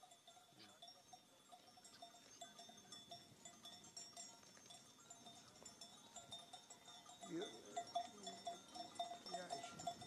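Faint cowbells clanking irregularly on walking cattle, a thin ringing that comes and goes with their steps. A brief low call, like a cow lowing, sounds about seven seconds in.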